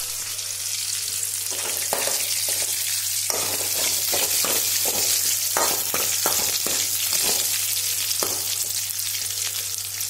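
Mustard seeds frying in hot oil in a metal pan, a steady sizzle broken by many sharp clicks and taps as a metal spoon stirs and strikes the pan.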